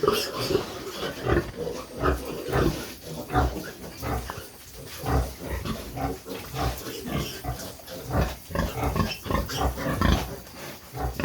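Pigs in a pen grunting, many short grunts in quick irregular succession.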